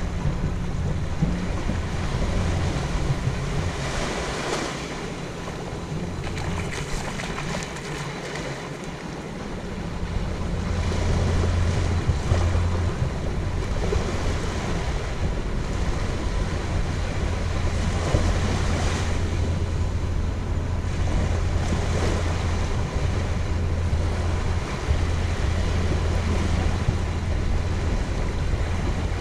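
Small surf washing up onto a sandy beach, swelling in soft washes every few seconds. Wind rumbles on the microphone underneath, easing for a few seconds and then returning.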